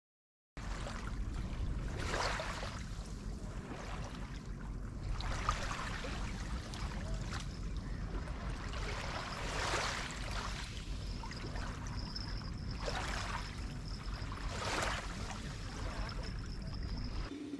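Sea water washing in repeated surges every two to four seconds over a steady low rumble.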